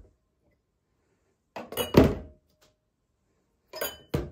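Wine glasses being set into the cardboard dividers of their box: a glass-on-cardboard knock about two seconds in, then two quick knocks near the end, each followed by a brief faint ring of the glass.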